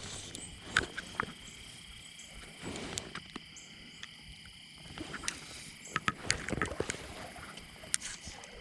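Water splashing and sloshing in a creek, with scattered sharp clicks and knocks, over a faint steady insect chorus.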